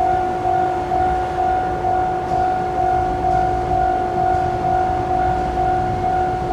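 Japanese railway level-crossing warning bell ringing: a repeated electronic ding at one fixed pitch, about two strokes a second, over a low rumble.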